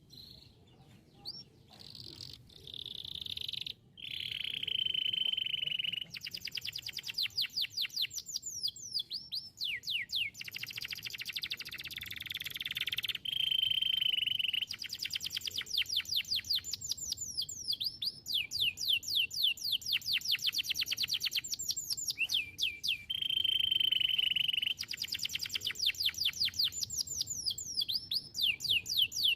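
Domestic canary singing a long continuous song: fast trills of rapidly repeated notes, held steady whistles, and runs of quick downward-sweeping notes, one phrase changing into the next.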